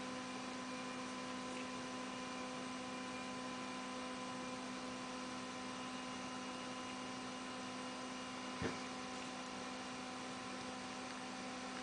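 Steady electrical hum with a few faint steady tones above it over a low hiss, and one brief soft sound about three-quarters of the way through.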